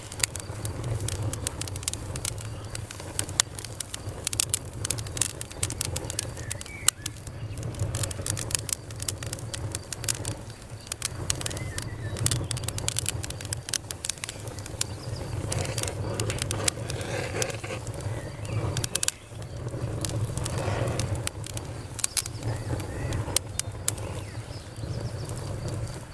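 Campfire burning, wood crackling and popping in quick irregular snaps over a steady low rumble.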